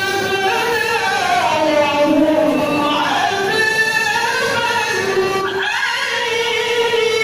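A woman's melodic Qur'an recitation (tilawah), long ornamented notes that glide up and down. One phrase ends about five and a half seconds in and the next begins.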